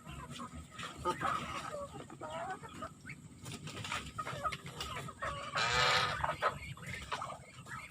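Chickens clucking, many short calls overlapping, with one louder, longer call about six seconds in.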